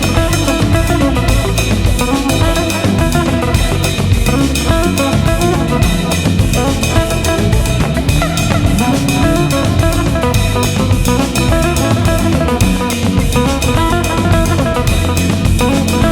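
Background music: a steady band track with drum kit and guitar.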